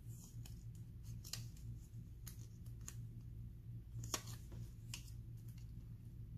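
Washi tape peeled and handled with tweezers on a scrapbook page: a few scattered short crackles and taps, the loudest about four seconds in, over a steady low hum.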